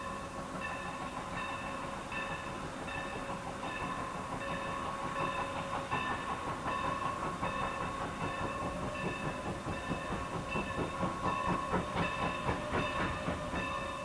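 Train passing with a bell ringing in a steady repeated rhythm, a stroke a little more than once a second. Rhythmic clatter builds up and grows louder through the second half.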